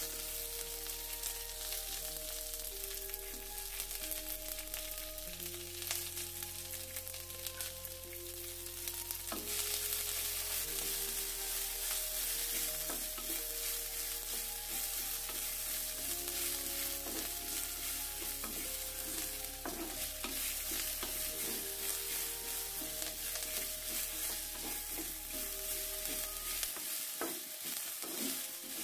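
Chopped onion and peanuts sizzling in hot oil in a clay pot, stirred with a wooden spatula that scrapes and knocks against the pot. The sizzle gets louder about ten seconds in.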